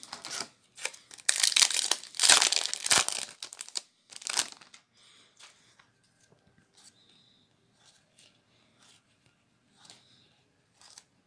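A Magic: The Gathering booster pack's foil wrapper being torn open and crinkled in a run of loud rustling bursts over the first four or five seconds. After that come only faint clicks and slides of playing cards being handled and sorted.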